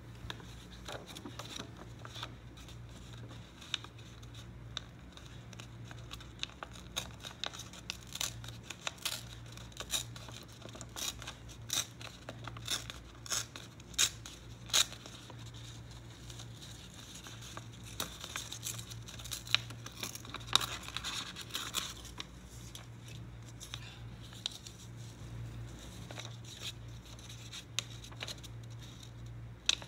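Paper being handled, torn and cut with scissors: crisp crinkles and rustles of old book pages and paper, with many sharp snips and clicks. There is a denser stretch of rasping paper noise about two-thirds of the way through.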